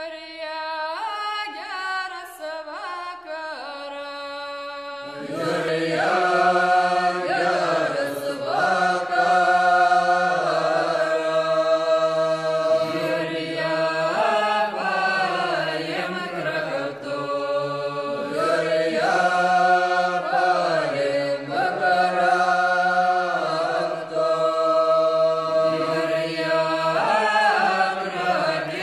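Vocal music in a chant-like style: a single voice sings held notes that step in pitch, and about five seconds in more voices join below it, singing long sustained lines together.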